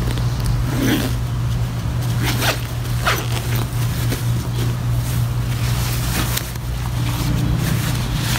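Nylon tent stuff sack and backpack being handled, with rustling and several short zip-like strokes as the sack is closed and pushed into the pack. A steady low hum runs underneath.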